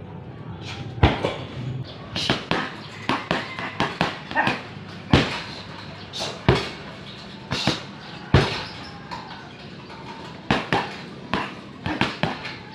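Gloved punches and kicks landing on heavy punching bags in quick combinations: sharp, irregular thuds in clusters of two to five strikes.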